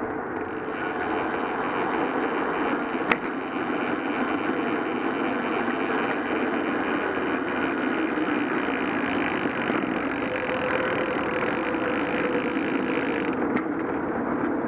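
Steady road and traffic noise during a bicycle ride among cars, with one sharp click about three seconds in.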